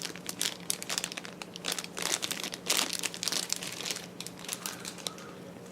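Packaging crinkling and rustling in irregular crackles as an accessory is taken out of its wrapping, busiest in the first few seconds, then thinning out.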